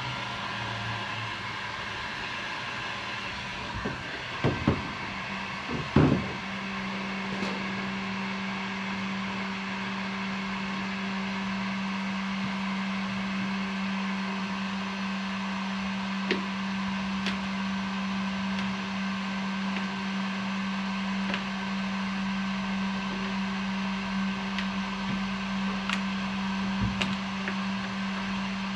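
Electric heat gun running with a steady motor hum and rushing air, heating a sheet of Kydex plastic for forming. A few knocks and clatters about four to six seconds in, after which the hum gets louder, with occasional light clicks.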